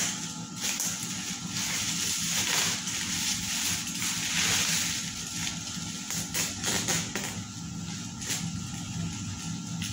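Plastic bubble wrap crinkling and rustling as it is cut open with a utility knife and pulled apart by hand, with scattered sharp crackles.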